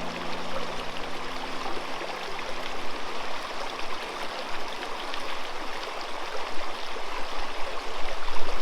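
Murmuring river or brook, a steady babble of running water. The last held piano notes die away in the first two seconds.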